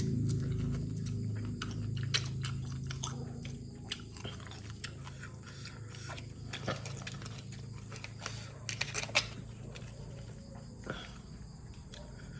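Close chewing and crunching of spicy mixed seafood salad, with scattered small crunches and clicks. A low hum fades out over the first few seconds.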